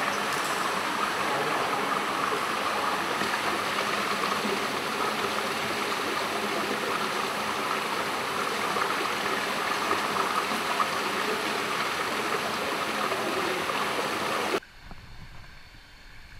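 Steady rush of running water in an indoor saltwater fishing pond. It cuts off abruptly near the end, leaving a much quieter low rumble.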